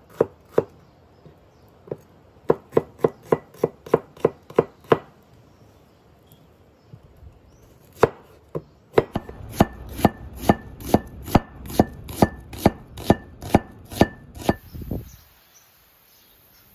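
Kitchen knife slicing a peeled onion on a wooden cutting board: steady runs of sharp knocks as the blade meets the board, two to four a second, in two long runs with a pause between. The slicing stops about fifteen seconds in.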